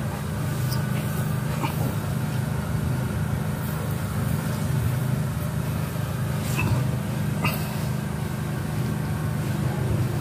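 Steady low mechanical hum, like a running motor, with a few faint clicks over it.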